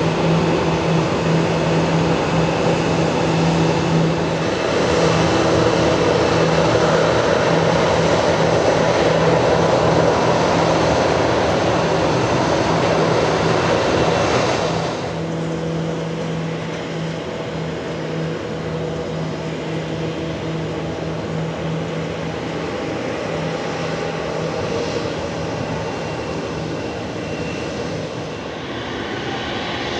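Airbus A340-300's four CFM56 jet engines running at taxi power: a steady engine hum with a low drone that swells over the first half. About halfway through it drops suddenly to a quieter, steady engine sound.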